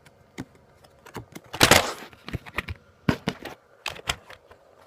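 Trading cards and their packet being handled: a run of small clicks and short rustles, with one louder, longer rustle about one and a half seconds in.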